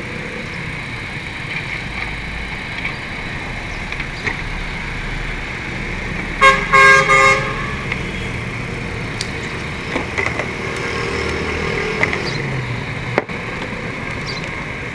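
A vehicle horn toots twice in quick succession about six and a half seconds in, over a steady background of traffic hum. A few light clicks follow as a screwdriver pries at a car headlight's plastic lens and housing.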